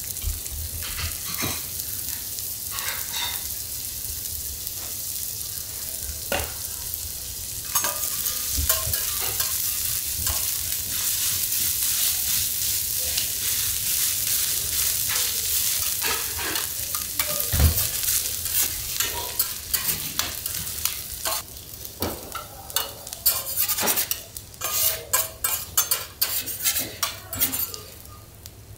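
Garlic rice frying on a teppanyaki steel griddle: a steady sizzle that grows louder about eight seconds in. Over it, spatulas scrape and click against the plate as the rice is stirred, with a quick run of taps near the end.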